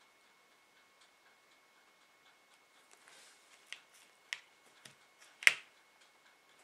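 Small craft scissors at work on a tiny piece of clay, then set down: faint ticking at first, then a few sharp clicks and taps, the loudest about five and a half seconds in.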